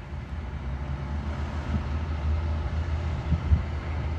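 Fire engine's diesel engine idling, a steady low rumble, with a couple of brief low thumps about three and a half seconds in.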